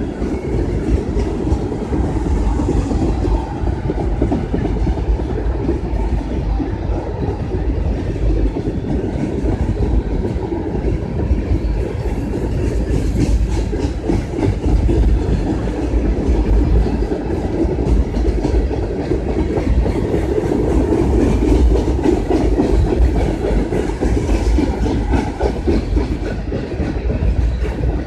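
Freight train of tank cars rolling steadily past: a continuous rumble of steel wheels on the rails.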